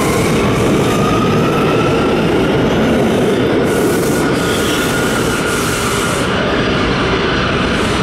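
New York City Subway R179 train accelerating out of a station along the platform. A steady rumble and rattle of wheels on rail runs throughout, under a faint electric motor whine that rises in pitch over the first few seconds.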